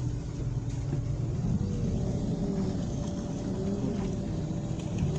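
Car engine and road rumble heard from inside the cabin while driving slowly, steady throughout, with a faint tone slowly wavering up and down above it.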